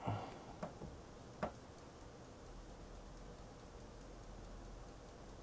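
A UMC-made LCD TV being switched out of standby: a few light clicks in the first second and a half as its button is pressed and the set comes on, then a faint low hum with faint, evenly spaced ticking.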